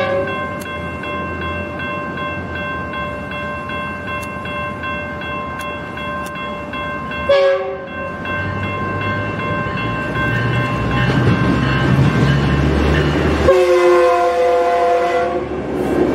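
Approaching Metrolink passenger train: its horn gives a short blast about seven seconds in and a longer, louder blast near the end that sags slightly in pitch. The locomotive's diesel engine rumble builds from about ten seconds in as it nears.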